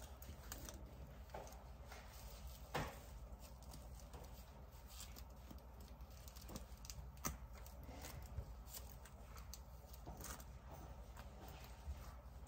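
Faint rustling and scattered small clicks of fingers picking and peeling tape off a pigeon's wing feathers, with a sharper click about three seconds in.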